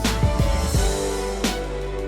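Instrumental music with held tones and a steady drum beat.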